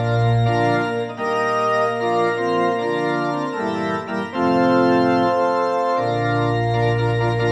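Organ music: slow held chords that change every second or two.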